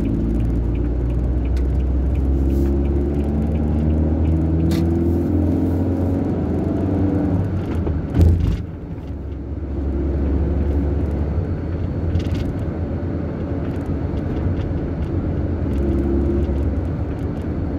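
Car engine and road noise heard from inside the cabin while driving, the engine note rising as the car speeds up, with a single thump about eight seconds in.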